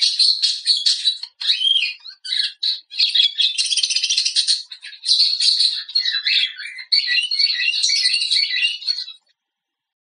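Budgerigars chattering and warbling: a fast, unbroken run of squawks, chirps and scratchy high notes that stops shortly before the end.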